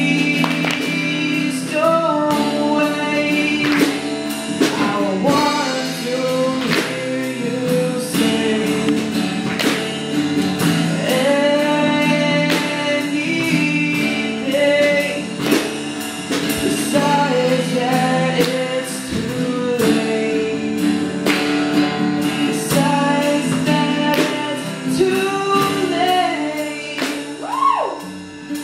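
A song performed live: a singer holding long sung notes over strummed acoustic guitar.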